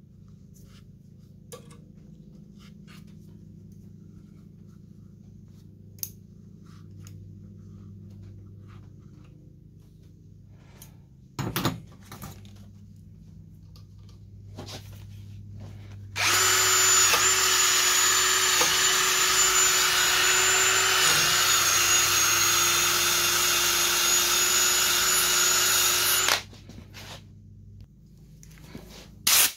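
A handheld power tool runs steadily for about ten seconds from about halfway in, with a steady whine, then cuts off suddenly, cleaning old gasket residue and carbon off the cylinder deck of a Kawasaki FH451V engine. Before it, faint clicks and a brief knock.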